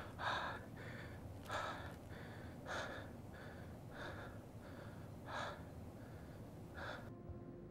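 A man crying, sobbing in short gasping breaths, about one every half second to a second, some louder than others; the sobbing breaks off suddenly near the end.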